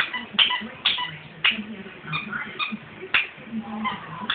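Squeaky pet toy being squeezed again and again, short sharp squeaks coming about twice a second at an uneven pace.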